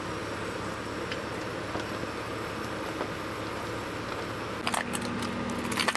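Soup, noodles and toppings being scraped out of a plastic tray with a wooden spoon into a steel pot of broth, over a steady hum. Soft scrapes and faint clicks, then a cluster of sharper clicks and wet knocks near the end as the noodles slide into the soup.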